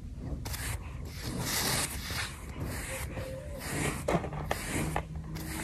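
A curry brush scrubbing a horse's dirty coat in several short, irregular strokes, each a brief hissing rasp.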